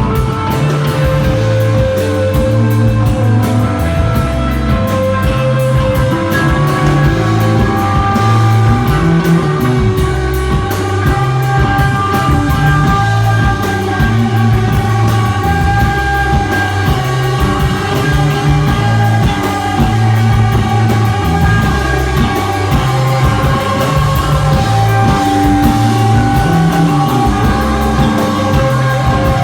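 Desert-rock three-piece of electric guitar, bass guitar and drum kit playing live: a spacey, droning guitar swirl of long held notes over steady bass and drums.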